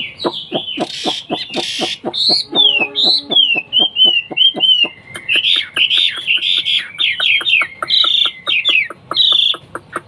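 Chinese hwamei singing: a fast, varied song of short whistled notes that slide down in pitch, broken by quick strings of rapidly repeated notes.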